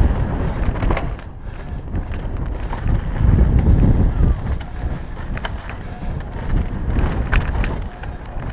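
Wind buffeting the microphone of a helmet-mounted camera on a downhill mountain bike at speed, a steady low rumble that swells and eases, with scattered sharp clicks and rattles from the bike running over the rough dirt trail.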